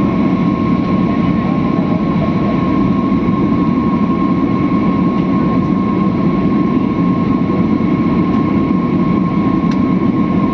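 Steady drone of an airliner cabin in flight: engine and airflow noise with a constant high whine over it.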